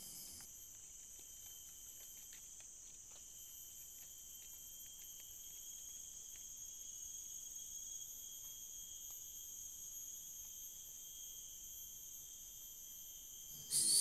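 Steady, high-pitched chorus of forest insects: several shrill tones held without a break.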